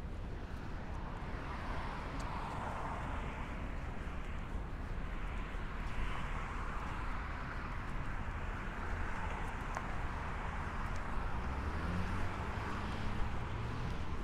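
Road traffic on a city street: cars passing one after another, their tyre noise swelling and fading every few seconds, with a lower engine hum joining near the end.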